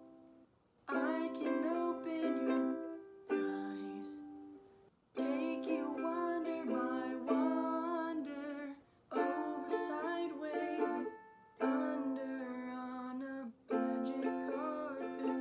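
Ukulele chords strummed in short phrases, each starting with a sharp strum and ringing out, separated by brief breaks.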